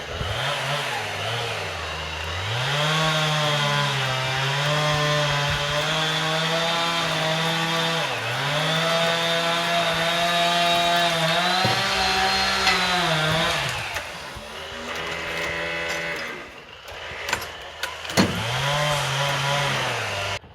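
Chainsaw running at high revs, its pitch sagging briefly a few times as it cuts through log wood, easing off for a few seconds near the end with a sharp knock before revving up again.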